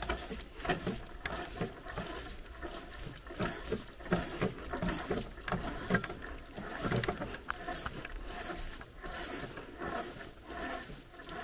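Pulley and cable of a hand-hauled boat ferry clicking and creaking irregularly as the line is pulled to draw the boat over.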